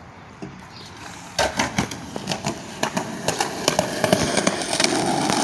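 Skateboard wheels rolling down a concrete sidewalk. From about a second and a half in, sharp clacks come every third of a second or so as the wheels cross the slab joints, over a rolling rumble that grows steadily louder as the board picks up speed.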